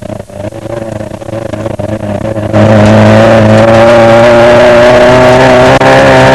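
Off-road desert race car engine heard from inside the car. It runs under knocks and rattles, then about two and a half seconds in suddenly becomes much louder and holds a steady, high pitch under hard throttle.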